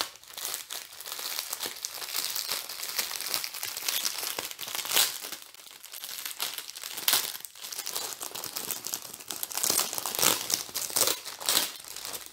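Plastic packaging crinkling and rustling as it is opened and the clear bags of round diamond-painting drills inside are handled; irregular crackling with louder crinkles now and then.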